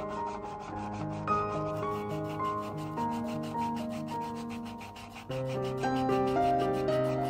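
Paint marker tip scrubbing back and forth over masking tape and paper, about four rubbing strokes a second. Soft background music with held, changing notes plays under it.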